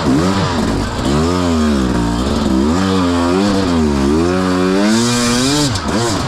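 Two-stroke dirt bike engine being ridden on a trail, its revs swinging up and down about once a second as the throttle is opened and rolled off.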